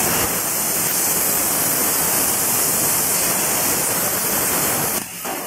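A 100 A CNC plasma cutter's torch arc cutting sheet metal: a loud, steady hiss that cuts off about five seconds in.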